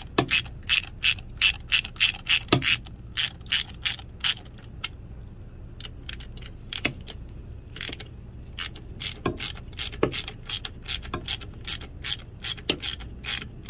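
Hand ratchet with a 10 mm socket and wobble extension clicking in quick runs, several clicks a second, as it backs out the ignition coil bracket bolts on a GM 8.1 Vortec V8. The clicking stops for about two seconds midway, then resumes more sparsely.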